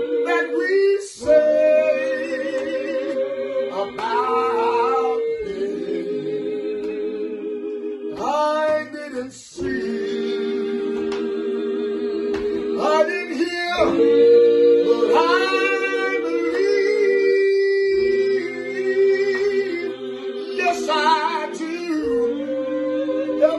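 Several voices singing a slow hymn together without instruments, holding long notes with vibrato, with short breaks between phrases.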